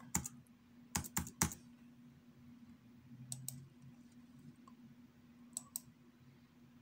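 Computer keyboard keystrokes: a quick run of about five key presses in the first second and a half, typing in a number, then two pairs of single key or mouse clicks later on, over a faint steady hum.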